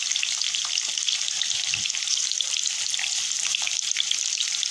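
Onion slices frying in hot oil in a pan: a steady, dense sizzle with fine crackling.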